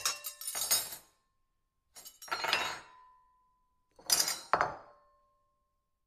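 Silverware clattering on a plate in three short bursts about two seconds apart. Each burst is a quick run of clinks that leaves a brief ringing tone.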